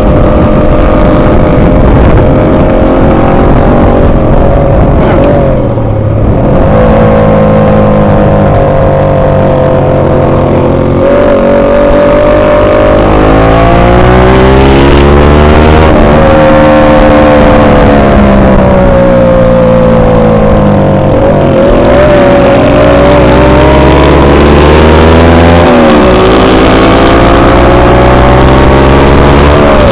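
Motorcycle engine running loud and close at road speed. Its revs climb and drop several times over the stretch, with a long climb then fall in the middle and a drop again near the end.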